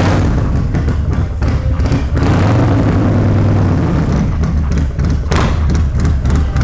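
Harley-Davidson Fat Bob's 114-cubic-inch Milwaukee-Eight V-twin, fitted with an S&S 475G cam chest kit and a TBR Shorty 2-into-1 exhaust, running loud with a choppy, uneven beat. It swells briefly about two to four seconds in.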